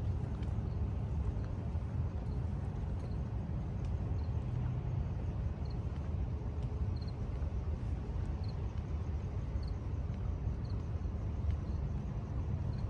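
Outdoor urban night ambience: a steady low rumble, with a faint short high chirp repeating roughly once a second.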